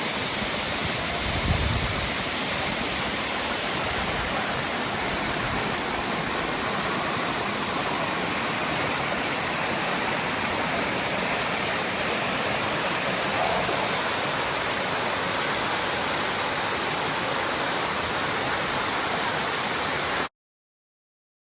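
Waterfall rushing steadily, a dense even noise of falling water. A brief low thump comes about one and a half seconds in, and the sound cuts off suddenly near the end.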